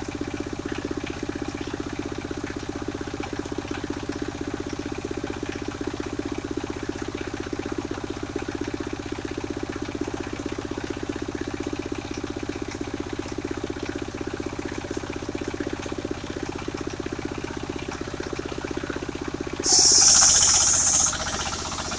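The engine of a portable circular sawmill runs steadily with a fast, even chugging. Near the end a loud high hiss breaks in for about a second and a half, after which the running note changes.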